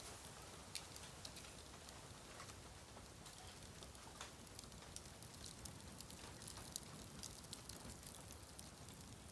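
Faint crackling of dead bamboo burning in an open bonfire: scattered, irregular sharp snaps and ticks over a low steady hiss.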